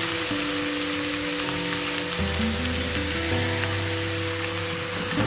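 Shredded ash gourd sizzling as it is tipped into hot mustard oil in a stainless-steel kadai, a steady frying hiss. Soft acoustic background music plays underneath.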